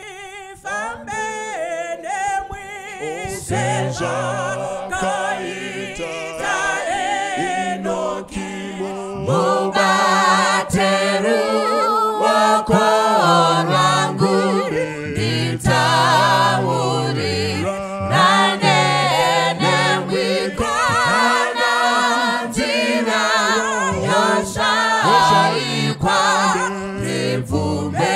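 Choir singing a hymn in parts, starting softly and growing louder over the first few seconds.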